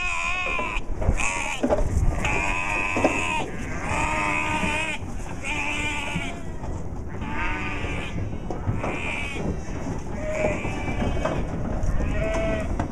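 Sheep bleating again and again: a string of wavering calls, each about half a second to a second long, one after another with short gaps.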